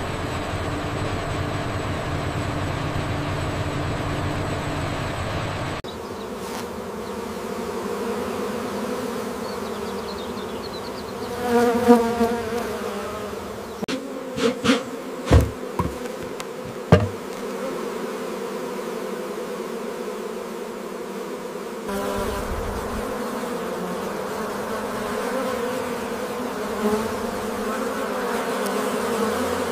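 A low machine hum with a faint high whine for the first six seconds, then the steady buzz of a honeybee colony. Near twelve seconds a single buzz rises and falls, and a few seconds later comes a handful of sharp, loud knocks.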